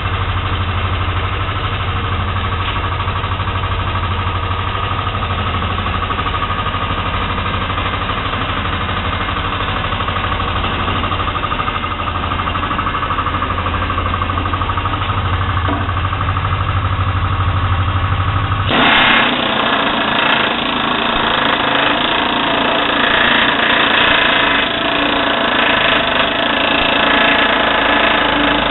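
A steady low machine hum for about the first two-thirds. It then changes abruptly to a WNS AH20 pneumatic air hammer rapidly hammering shut the Pittsburgh lock seam on a sheet-steel duct elbow.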